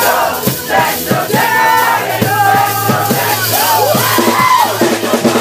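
Live rock band playing loudly, with guitar and a steady drum beat under shouted singing and a crowd singing along.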